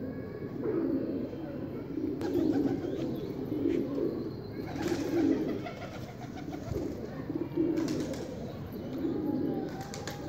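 Domestic pigeons cooing: low rolling coos repeat roughly every second or so, over a few sharp clicks.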